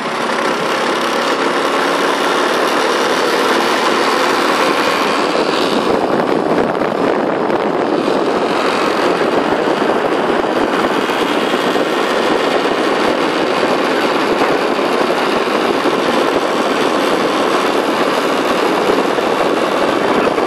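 Motorbike engine running steadily as it carries the rider up a mountain road, under a constant rush of riding wind on the microphone.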